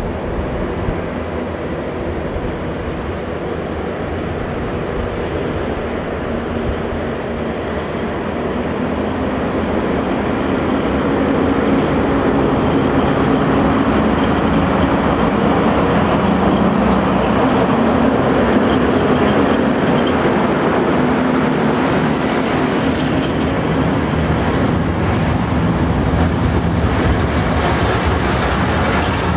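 ET22-type electric freight locomotive running up and passing close, then its long string of hopper wagons rolling by with a steady rumble. The sound grows louder about a third of the way in as the locomotive draws level, with a steady low hum under the rolling noise.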